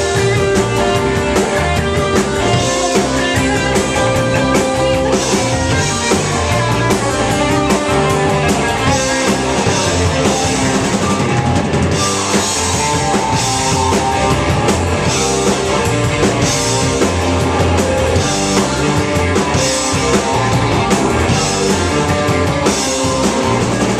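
Rock band playing live, with drum kit and guitar driving a steady beat at full volume.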